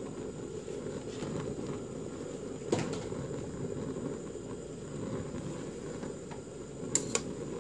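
Metal tongs knocking and clicking against a stainless steel pot while lifting kelp and bonito flakes out of broth: one knock a little under three seconds in and two quick clicks near the end, over a steady low background rumble.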